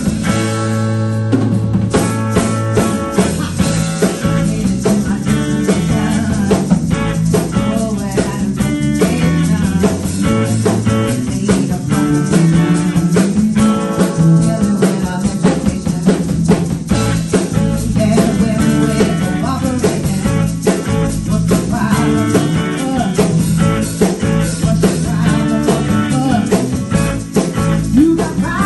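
Live band playing a song: strummed acoustic guitar with electric bass and a drum kit keeping a steady beat.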